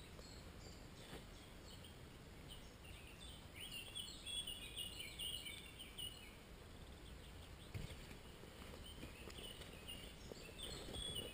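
Small birds singing in woodland, short chirping phrases that come and go, strongest in the middle and again near the end, with a single soft knock a little before the end.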